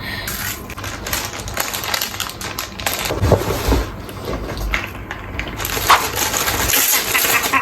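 Crinkling and rustling of packaging being handled and opened, a dense run of small crackles.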